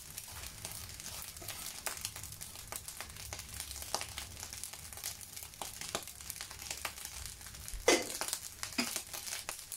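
Pork and fried rice frying in a pan: a light sizzle with scattered crackles and the clicks and scrapes of a utensil, over a low steady hum. A louder scrape comes about eight seconds in.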